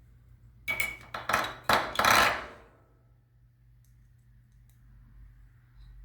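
Objects being handled on a workbench: a quick run of four or five clattering knocks over about two seconds, the last one the longest, then quiet room tone.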